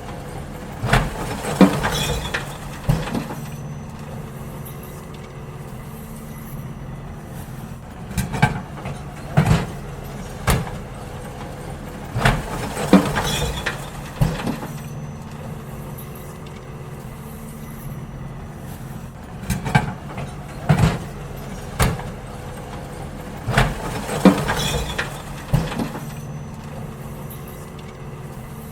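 Garbage truck running with a steady engine hum while wheelie bins are emptied: clusters of bangs and clatters come every few seconds as bins are tipped into it.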